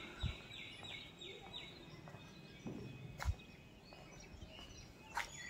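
Faint outdoor ambience with a bird calling a quick run of short falling notes over the first two seconds, and two soft knocks, one just after the start and one about three seconds in.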